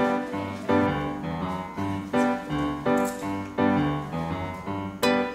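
Background music: piano chords played in a steady rhythm, about two a second. Near the end, a run of bright plucked notes comes in.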